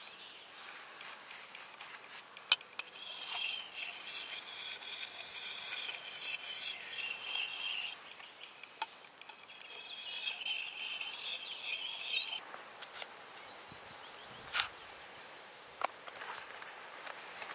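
Axe blade being rubbed with a round combination sharpening stone, giving a high, ringing metallic scrape in two long spells: the first about five seconds, the second about three. A few sharp clicks come between the spells.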